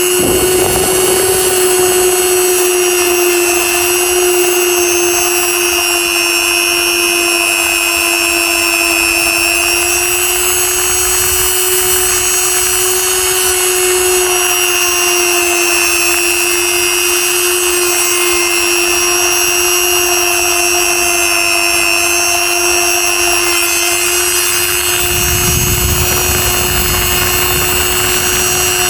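Small electric power tool running at a steady speed: a continuous whine that cuts in abruptly at the start, with a brief low rumble added near the end.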